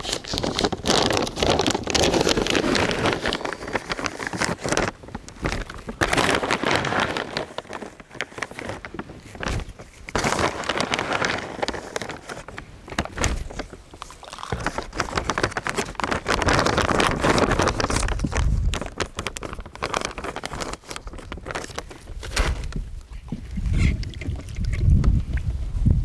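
Outdoor noise that swells and fades every few seconds, with crackly rustling: wind gusting through the reeds and over the microphone, buffeting low near the end.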